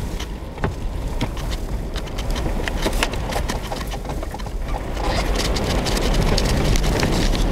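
Nissan Xterra heard from inside the cab, driving slowly on a snow-covered gravel road: a steady low rumble of engine and tyres, with frequent sharp clicks and crackles, and the road noise growing thicker about two thirds of the way in.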